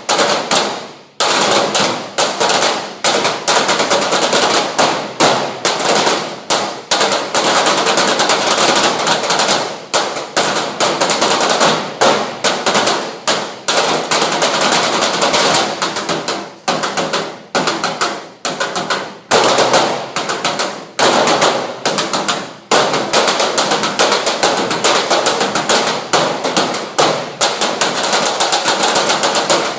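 Drum kit played fast and hard, a dense run of rapid hits with a steady bright wash over them, stopping abruptly at the end.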